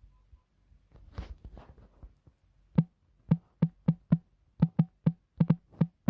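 A percussion beat of short, sharp knocking hits in a syncopated rhythm, each with a low thump, starting near the halfway point after a brief noisy burst about a second in.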